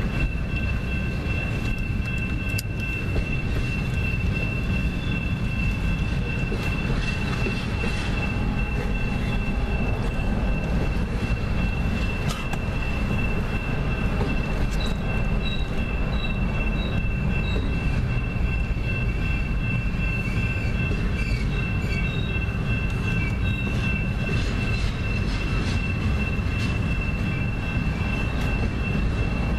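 Double-stack container freight train rolling steadily past a grade crossing, heard from inside a car: a continuous low rumble of wheels on rail with a steady high-pitched tone over it.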